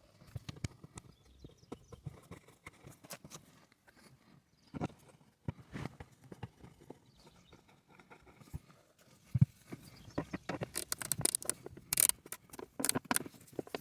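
Hand work on a van's cabin air filter housing: irregular plastic clicks, knocks and rustles as the filter and its fittings are handled, growing busier and louder about ten seconds in.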